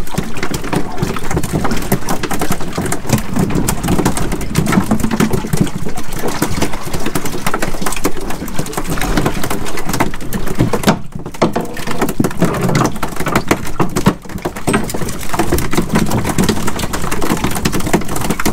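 Boat engine running steadily under a loud, crackling rush of wind and water.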